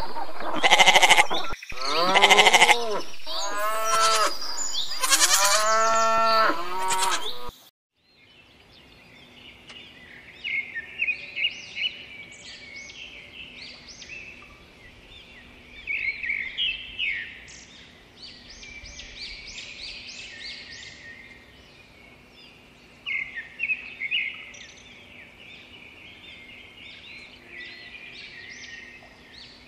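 Sheep bleating loudly several times, cut off abruptly about seven and a half seconds in. After that, small birds chirp on and off, quieter, over a faint steady hum.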